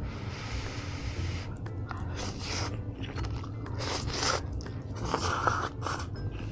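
A person eating: crunchy bites and chewing. A steady hiss runs for the first second and a half, then three or four louder crunches follow.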